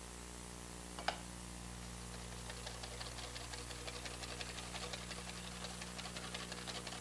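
Wire whisk beating a homemade garlic aioli in a stainless steel bowl: a fast, even run of light metallic clicking that starts about two and a half seconds in.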